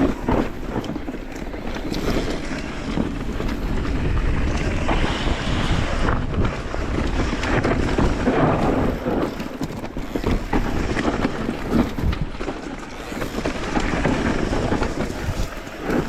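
Wind rumbling and buffeting against the microphone.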